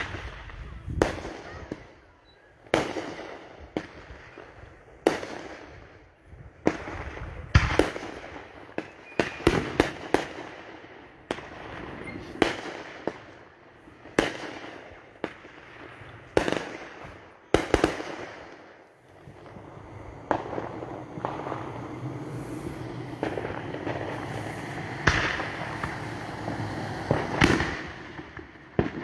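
Fireworks going off: a long series of sharp bangs, sometimes in quick pairs and sometimes a couple of seconds apart, each trailing into crackle, with denser overlapping crackling in the second half.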